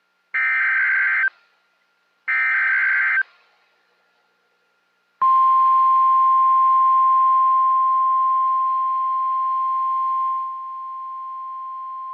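Emergency Alert System SAME header: two short data bursts about a second apart (the last two of its three repeats), then after a pause the steady 1050 Hz NWS attention tone starts about five seconds in and holds, a little quieter from about ten seconds in.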